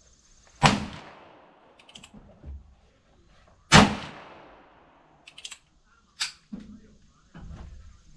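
.357 Magnum gunshots, twice, about three seconds apart, each with a trailing echo. Short, quieter clicks and knocks come between the shots.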